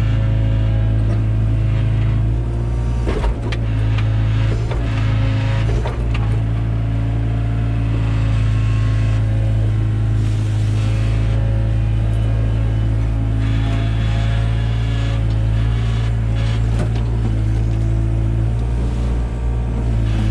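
Takeuchi TB175 excavator's diesel engine running steadily under hydraulic load, its tone shifting now and then as the hydraulics work, with a few short clunks from the bucket and arm.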